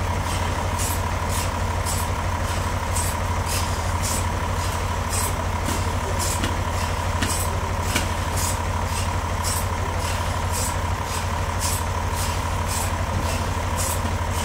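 Bandsaw mill running: a steady low hum under a steady high whine, with a sharp tick repeating about two or three times a second.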